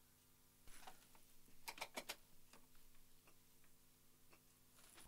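Faint clicks of mic preamp rotary knobs being turned, over a low steady hum. A quick cluster of four clicks comes about two seconds in, and scattered single ticks follow.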